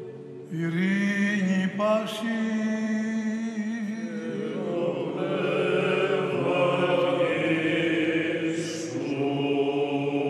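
Greek Orthodox liturgical chant: men's voices intoning the Gospel reading and its responses, with long held notes that glide between pitches, starting after a short pause about half a second in.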